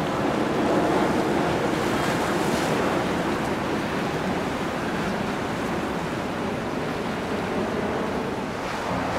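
Steady rushing noise of wind and water.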